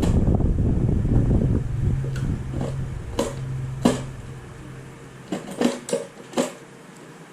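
A small motor's low rumble dying away over the first couple of seconds, leaving a steady low hum that stops about four and a half seconds in. Several sharp clicks and knocks follow, the sound of small parts being handled.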